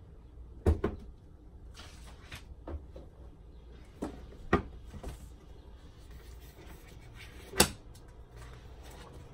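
A few sharp knocks and clatters of notebooks and papers being picked up and set down on a desk, the loudest near the end.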